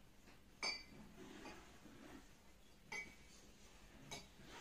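Three faint, light clinks of tableware, a hard cup or utensil knocking, spread over a few seconds against a quiet room.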